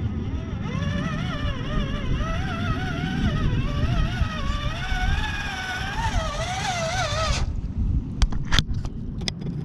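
An RC Ford Bronco crawler's electric motor and drivetrain whine as it tows a boat trailer through mud. The pitch wavers up and down with the throttle. The whine cuts off suddenly about seven seconds in, and a few sharp clicks and knocks follow.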